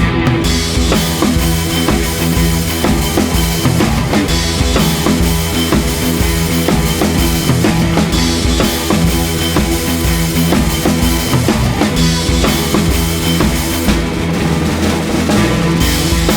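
Background rock music with a steady drum-kit beat, bass drum and snare.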